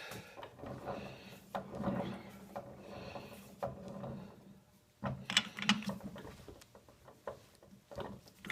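Scattered clicks, knocks and scraping of metal hand tools working the lathe's leveling screws.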